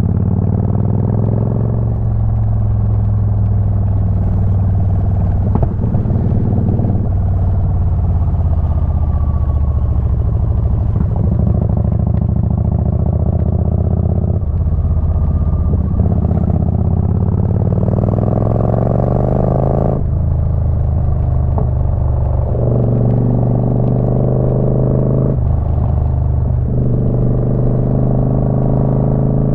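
Motorcycle engine running under way. The pitch climbs as it accelerates and steps at several gear changes, with one long rise in pitch a little past the middle.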